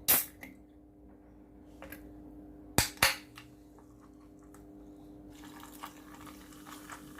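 Ghost pepper cola, a carbonated drink, being opened and left to fizz: a sharp crack right at the start and two more close together about three seconds in, then from about five seconds in the faint, steady crackle of the gas bubbling out.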